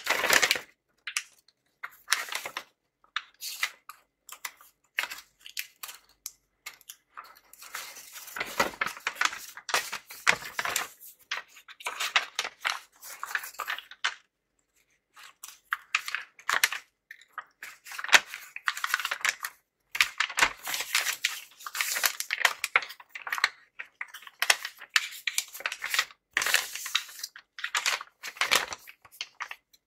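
Kraft paper bag rustling and crinkling as it is unfolded and flattened by hand, in irregular bursts with a short pause about halfway through.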